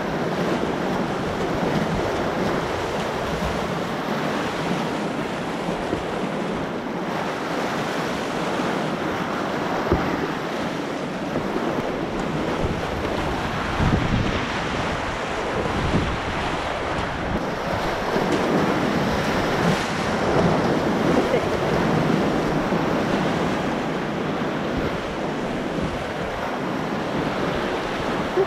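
Whitewater rapids rushing and splashing close around a kayak as it runs through breaking waves. Steady loud rushing, with somewhat louder surges of water in the second half.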